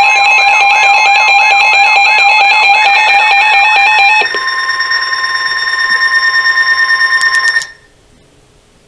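Emergency Alert System attention signal: loud electronic alert tones, several steady pitches with a warbling tone over them, changing about four seconds in to a pulsing tone that stops abruptly, leaving faint hiss.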